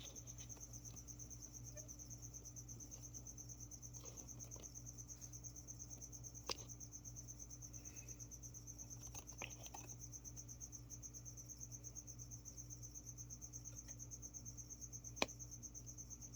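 A cricket chirping in a fast, even, high-pitched trill that goes on without a break. A few sharp clicks sound over it, the loudest near the end.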